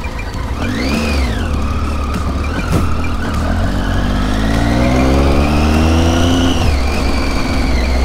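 Triumph Tiger 800's three-cylinder engine accelerating under way. There is a brief rise and fall in revs about a second in, then a long climb in pitch over about four seconds that drops off near the end.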